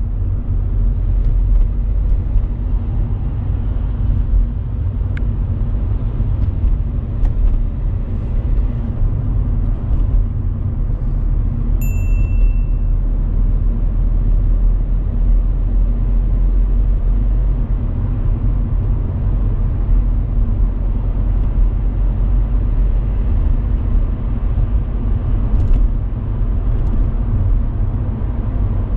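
Steady low rumble of car engine and road noise heard inside a moving car's cabin. A short high beep sounds once, near the middle.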